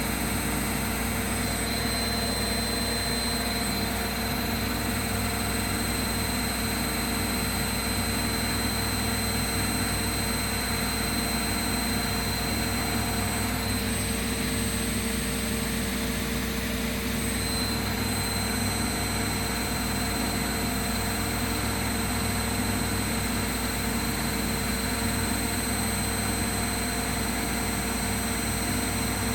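Bosch and Hoover washing machines running their final spin at high speed: a steady low hum with a high, even whine over it.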